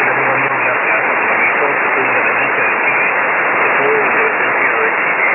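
SDRplay RSPdx receiver tuned to lower sideband on the 40-metre amateur band, giving a steady hiss of band noise with a weak voice faintly heard under it.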